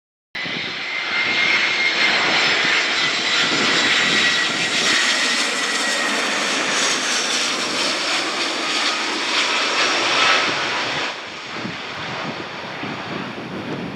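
Airliner's engines running loud as it passes, with a high whine that slowly falls in pitch. It drops off about eleven seconds in.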